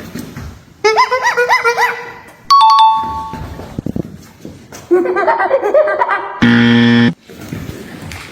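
A run of rapid squeaky chirps lasting about a second, then a two-tone ding-dong chime, falling from the higher note to the lower. Another run of squeaky chirps follows, then a harsh buzzer sounds for under a second.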